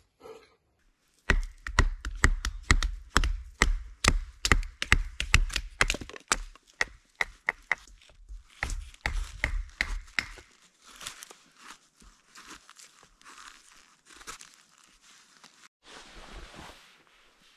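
Firewood being chopped: a quick run of sharp, knocking strikes, several a second, each with a low thud, lasting about nine seconds. After that comes softer crackling and rustling of the wood being handled.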